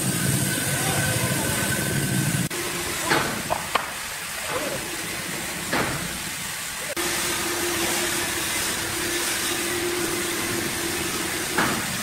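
Gasoline chainsaw running in a cut through a large log, easing off about two and a half seconds in. A few sharp knocks follow, and a steady machine hum sets in about seven seconds in, over constant hiss.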